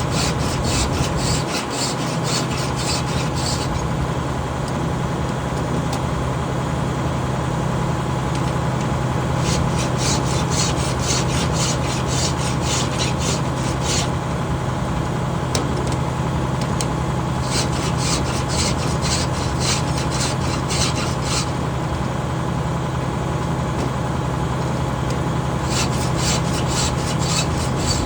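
A round file rasping across saw-chain teeth in quick, even strokes, in four sets of a few seconds each with short pauses between. An engine runs steadily underneath.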